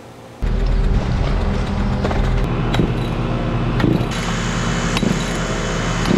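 A large engine running steadily, coming in abruptly about half a second in, with several sharp knocks over it.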